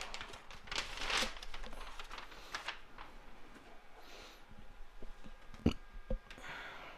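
Paper poster being unrolled and handled, rustling and crackling in short bursts, with two soft knocks near the end.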